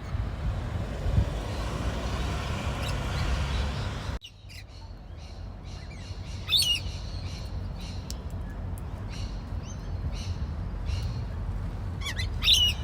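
Birds chirping in short, high calls, clearest about six and a half seconds in and again near the end, over a steady low rumble.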